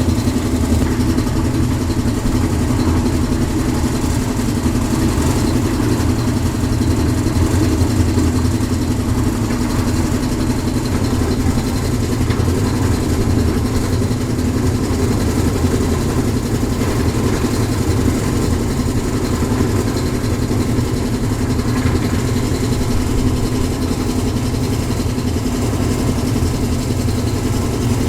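Concrete mixer's engine running steadily at a constant speed.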